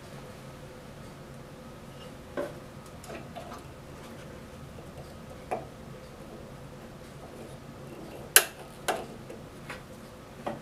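Snap ring pliers working a steel snap ring onto a band saw's wheel shaft: scattered sharp metallic clicks and snaps, the loudest two close together about eight and a half seconds in.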